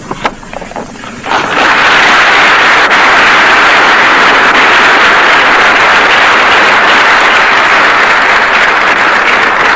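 Large audience of delegates applauding: a few scattered claps at first, then, about a second and a half in, full applause that quickly reaches its height and holds steady.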